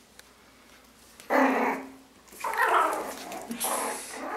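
One-month-old Yorkshire terrier puppies growling in play-fighting, three short rough growls starting a little over a second in.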